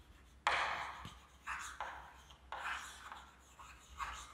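Chalk writing on a blackboard: a run of separate short strokes, the loudest about half a second in.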